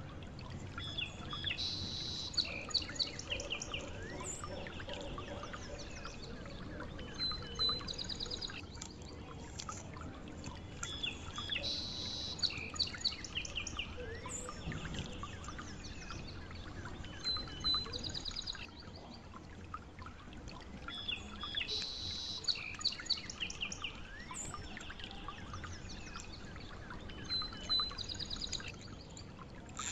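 Birds chirping and calling over a steady low background hiss, the same run of chirps repeating itself about every ten seconds as a looped birdsong recording would.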